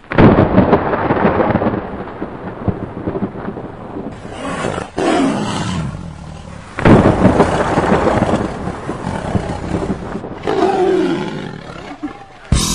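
Sound-effect thunder rumbling and a tiger roaring and growling, in three loud surges: at the start, about seven seconds in, and about ten and a half seconds in. A drum beat kicks in at the very end.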